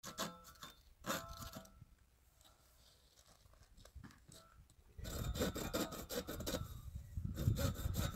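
Hand saw cutting through grey plastic electrical conduit. It starts with a few short, tentative strokes, then settles into steady, fast back-and-forth sawing from about five seconds in.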